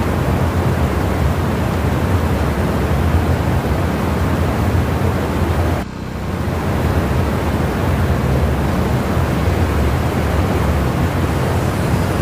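Sportsman 1000 watt portable generator's small engine running steadily with a low hum, briefly dropping about six seconds in.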